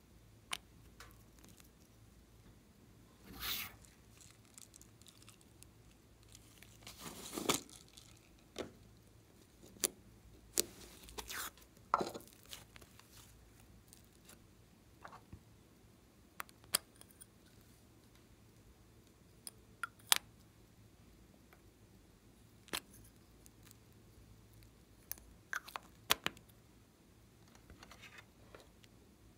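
Scattered small clicks, taps and brief scrapes from hands handling a nail-polish bottle, plastic makeup cases and slime over a glass bowl, with quiet gaps between them.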